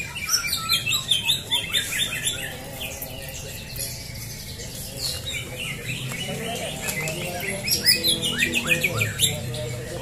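Caged songbirds singing in rapid runs of short, falling chirps, thickest in the first few seconds and again near the end, over a faint murmur of background voices.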